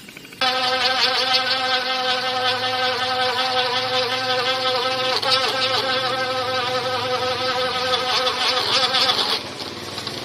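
Maspion F-18 electric fan giving off a loud, wavering buzz: the strange noise that comes with its unsteady rotation. It cuts off suddenly about nine seconds in.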